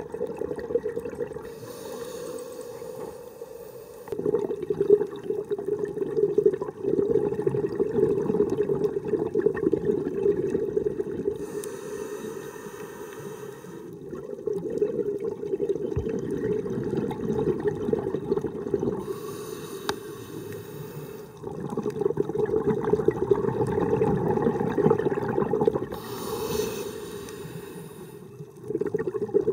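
Scuba diver breathing through a regulator underwater: a short hissing inhale followed by a long bubbling rush of exhaled air, four breaths in all.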